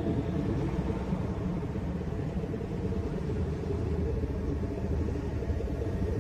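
Steady low rumbling drone with a few faint held tones above it, no beat: an ambient "sound of space" track, presented as electromagnetic frequencies from space probes converted into audible sound.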